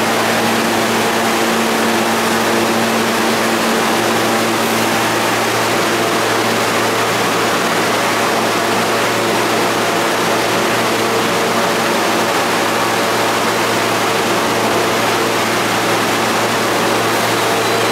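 R160 subway train standing in the station, its on-board equipment giving a steady hum with a low drone.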